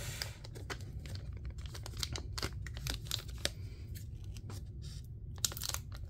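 Rustling and light scraping of trading cards and packaging being handled, with scattered small clicks, over a low steady hum.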